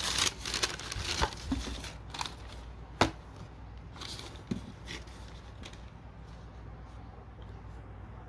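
Tissue paper rustling as a pair of small sneakers is handled out of a shoebox, then a sharp knock about three seconds in and a couple of lighter taps as the shoes are set down on a table; after that only a low steady hum.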